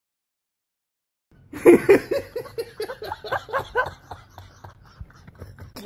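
A man laughing hard in a quick run of bursts, starting about a second and a half in after a moment of dead silence, then trailing off into quieter chuckles.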